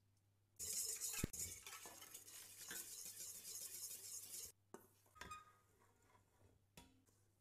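Wire whisk beating egg in a stainless steel mixing bowl, scraping and clinking against the metal, with a sharp knock about a second in. The whisking stops near the middle, followed by a few light metal clinks.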